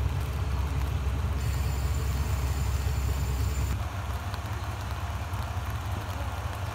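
Diesel railcar's engine idling at the platform, a steady low drone that drops a little about four seconds in.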